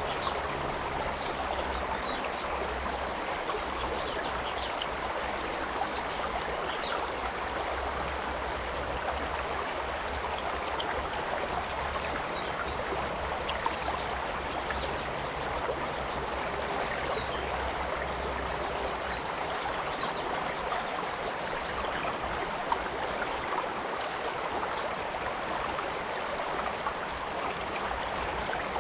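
A stream flowing steadily over rocks, with an even rush of water.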